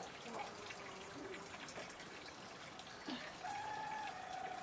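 Water trickling steadily. About three and a half seconds in comes a single long held call, lasting about a second.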